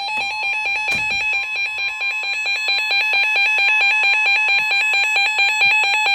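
Emergency alert attention tone for a severe thunderstorm warning: an electronic two-pitch warble, switching rapidly back and forth several times a second and growing louder about two seconds in. There is a brief click about a second in.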